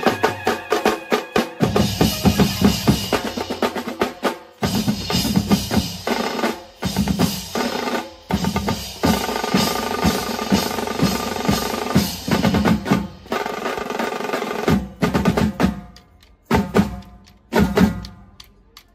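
Music driven by fast, heavy drumming with drum rolls, broken by a few short pauses, the longest near the end.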